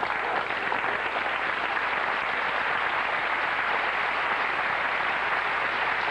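Large theatre audience applauding, a steady even clapping that holds throughout.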